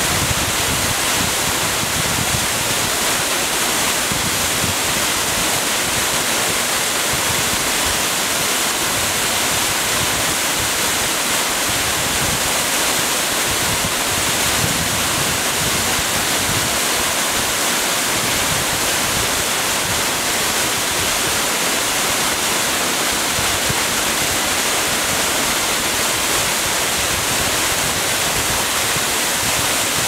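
A waterfall pouring down a rock face into a plunge pool: a steady, unbroken rush of falling water.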